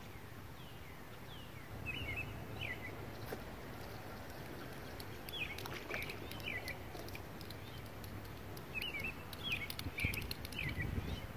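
Songbird chirping in three short bouts of quick rising notes, over a low steady outdoor rumble, with scattered faint clicks that thicken near the end.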